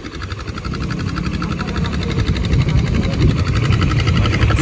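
Motorcycle engine running as the bike rides along at low speed, growing louder over the first few seconds.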